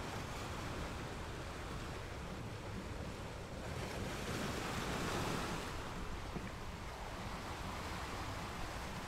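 Ocean waves breaking on a rocky beach: a steady wash of surf, with one wave surging louder about four seconds in and then falling back.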